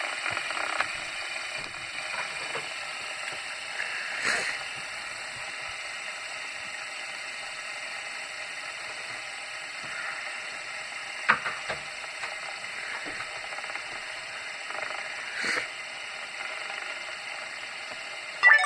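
Spiky fidget spinner spinning freely on a table, its ball bearing giving a steady whirring rattle. A few separate knocks come through, the clearest about eleven seconds in.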